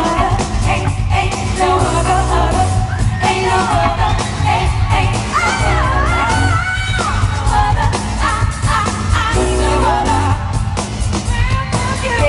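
Women singing a pop song over a full band with bass and drums, the voices bending through long, sweeping vocal runs.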